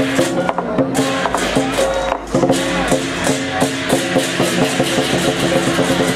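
Lion dance percussion: a large drum beaten in a steady rhythm with clashing cymbals ringing over it.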